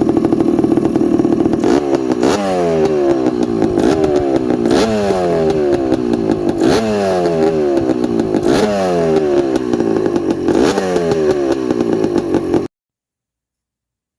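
Honda TRX250R's single-cylinder two-stroke engine running at a steady fast idle, then revved in repeated quick throttle blips about every two seconds, each one falling back slowly. It cuts off suddenly near the end.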